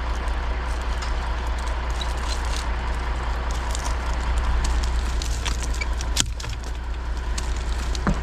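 Crane's engine running steadily with a low drone, with scattered small clicks and a single sharp crack about six seconds in.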